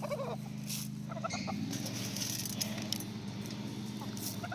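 Chickens clucking softly among scattered scratch grain, with light clicks and patters on the ground, over a steady low hum.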